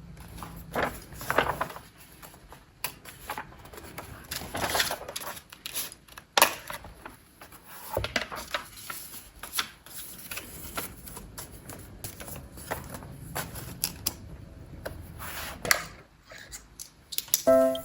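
Small objects being handled at close range: irregular clicks and taps mixed with short rustling swishes, a few louder than the rest.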